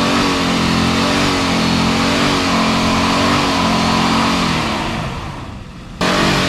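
Chevrolet Silverado pickup's V8 engine held at high revs under steady throttle. It fades away near the end, then cuts off abruptly to another loud stretch of engine.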